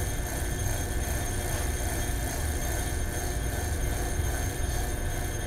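Electric vacuum pump running with a steady low drone, while the electric bell inside the evacuated plastic container rings only faintly: with almost no air left to carry the sound, the bell is muffled even though its hammer keeps striking.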